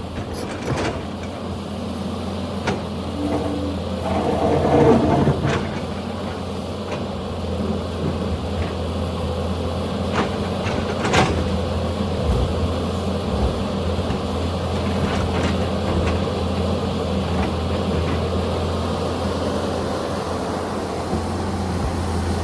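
Excavator's diesel engine running steadily under load, with scattered knocks and clatters from the working machine and rocks. The noise swells briefly about four to five seconds in.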